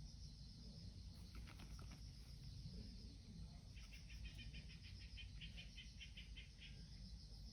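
Faint outdoor ambience: a steady high-pitched trill runs throughout, and about four seconds in a run of rapid chirps, about five a second, goes on for some three seconds, over a low rumble. A few faint clicks come about a second in.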